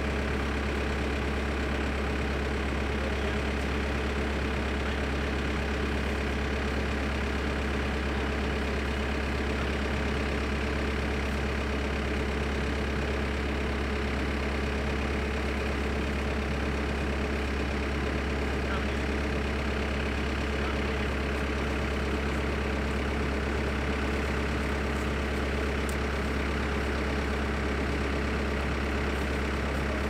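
Backhoe's diesel engine idling steadily.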